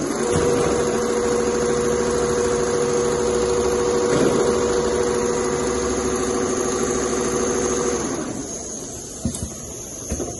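Richpeace two-head CNC pattern sewing machine stitching leather: a steady, rapid needle clatter over a running hum, which winds down and stops about two seconds before the end.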